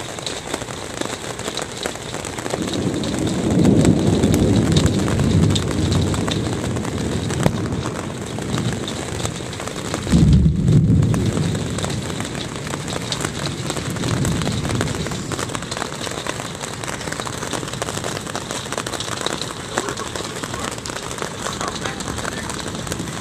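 Hail and rain drumming on a camper's roof, a dense, steady clatter of many small sharp hits. It swells twice into a deep rumble, about three seconds in and again, loudest, about ten seconds in.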